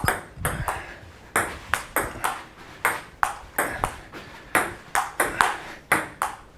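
Ping pong ball clicking back and forth in a rally, striking paddles and the table in a quick run of sharp hits, about two to three a second.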